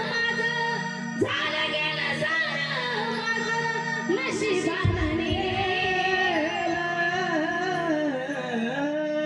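A woman singing a Marathi devotional song over an instrumental backing track, her voice hoarse, with a short break about a second in.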